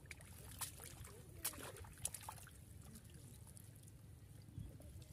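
Faint splashing and trickling of shallow muddy water as hands work a fishing net under the surface, with a few sharp splashes in the first two seconds.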